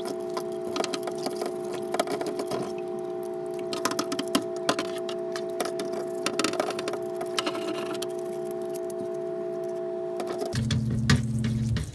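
Light clicks and metal clinks of an Atlas BT10 bipod's leg collars and joints being turned and worked by hand under water, over a steady hum. The hum stops and the sound changes abruptly about ten and a half seconds in.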